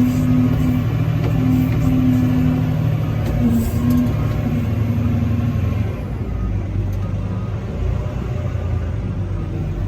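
Caterpillar 730 articulated dump truck's diesel engine running, with an on-and-off mid-pitched whine over it until about six seconds in, after which it settles to lower, steadier running.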